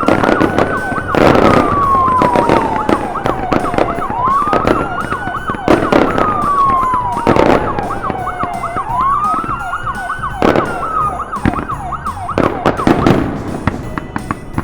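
Police car sirens: one wailing slowly up and down three times, another yelping rapidly, both dying out near the end. Firework bangs and crackling go on underneath.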